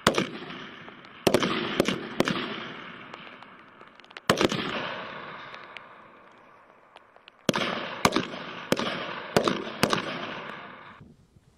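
M4 carbines firing single shots: about ten sharp cracks at irregular spacing, some in quick pairs, each ringing out in a long echo. The sound cuts off abruptly near the end.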